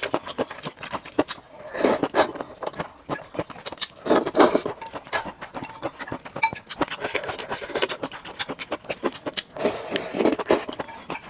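A person eating close to the microphone: chewing with many small wet mouth clicks, and a few short slurps about two, four and ten seconds in.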